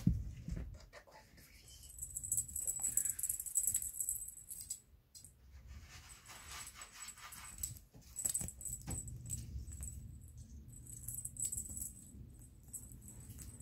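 A beaded chain toy jangling and clicking in irregular patches as a kitten bats at it and drags it across a fleecy blanket.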